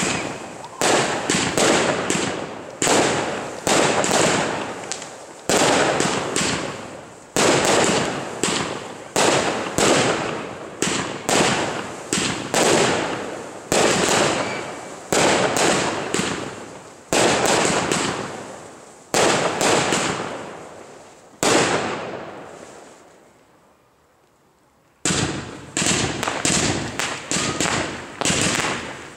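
Class 2 consumer aerial fireworks firing shot after shot, a loud bang every second or two, each dying away before the next. Near the end a pause of about three seconds is followed by a quicker string of shots, several a second.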